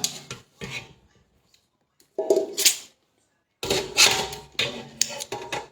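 Cutlery clinking and scraping against a plate while eating, in a short spell about two seconds in and a longer one from past halfway.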